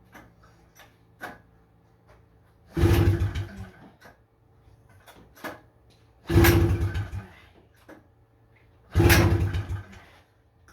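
1977 Honda FL250 Odyssey's two-stroke single being pull-started three times, each yank of the recoil starter turning the engine over for about a second without it firing. The engine will not start.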